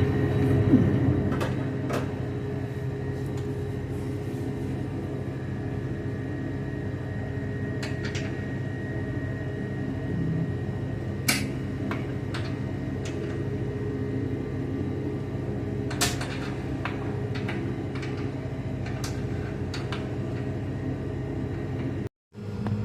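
A steady machine hum with scattered clicks and knocks of tools and parts being handled while a freezer's fan housing is taken apart.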